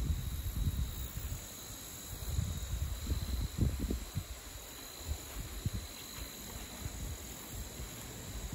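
Footsteps on a grass trail, irregular low thumps, over a steady high chorus of insects such as crickets.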